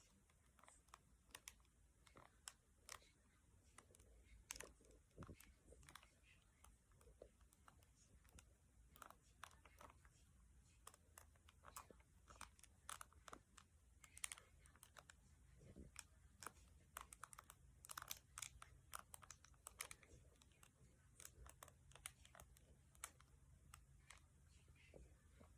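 Faint, close-miked stomach sounds: quick irregular clicks, pops and small gurgles from the belly, with a faint low hum underneath in the second half.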